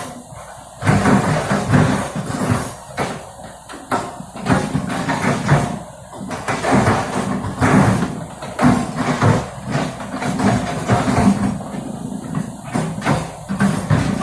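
Heavy machinery working on an earth embankment: an engine running under uneven load, with irregular knocks and scraping surges every second or so.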